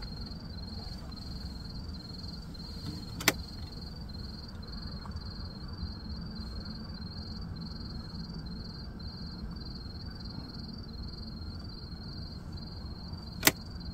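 Crickets chirping: a high chirp pulsing evenly a few times a second over a steady low rumble, with a sharp click about three seconds in and another near the end.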